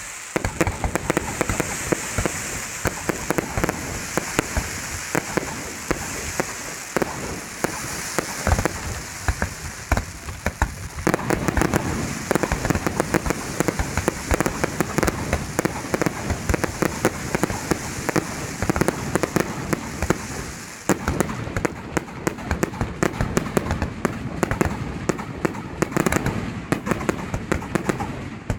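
Fireworks display: a dense, continuous crackle of many small pops and bangs, easing briefly twice before picking up again.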